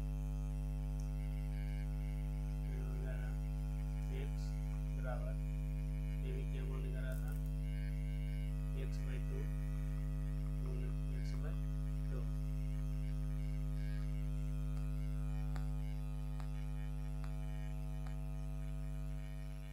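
Steady electrical mains hum with a stack of overtones, with a few faint short sounds over it. The hum drops in level near the end.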